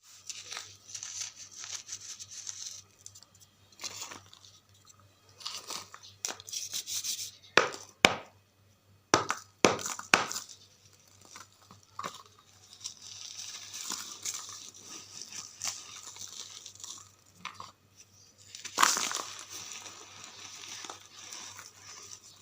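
Dry charcoal being crumbled, giving irregular crunchy, crackling bursts, with a few sharp snaps around the middle.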